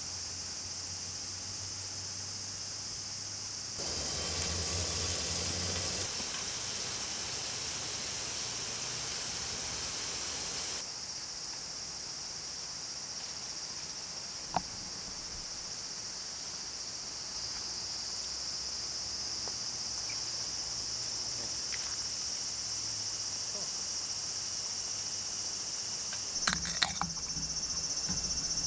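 Steady, high-pitched insect chorus. A louder hiss joins it for a couple of seconds about four seconds in, and a few sharp clicks come near the end.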